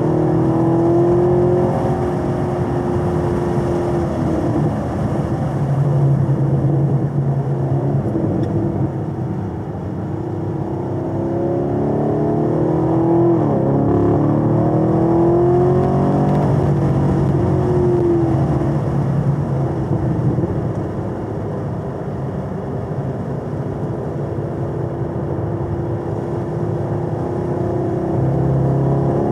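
2022 Camaro SS 1LE's LT1 6.2-litre V8 running hard at track speed, heard from inside the cabin. Its pitch rises and falls with throttle and gear changes, and it eases off about ten seconds in and again about twenty-one seconds in.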